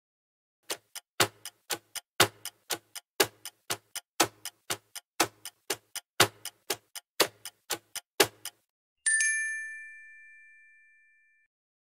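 Countdown-timer sound effect: a clock ticking about four times a second, with a heavier tick on each second, stops after about eight seconds and gives way to a single bell ding that rings out and fades. The ding marks the reveal of the quiz answer.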